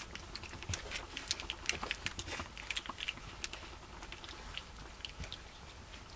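A litter of puppies scuffling and play-biting one another: many small irregular clicks, scratches and chewing sounds from their claws and mouths.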